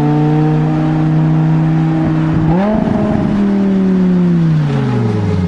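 Car engine running at steady revs, then the revs jump up sharply about two and a half seconds in and fall away slowly over the last two seconds.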